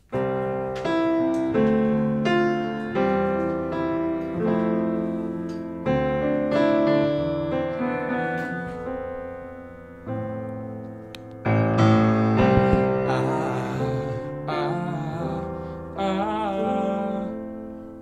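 Grand piano played solo: a slow introduction of chords, each struck and left to ring and fade, a new one every one to two seconds.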